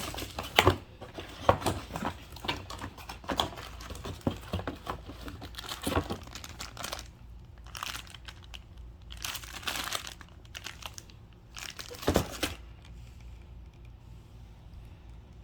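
Packaging being handled during an unboxing: irregular crinkling and rustling with sharp crackles, which stop about thirteen seconds in.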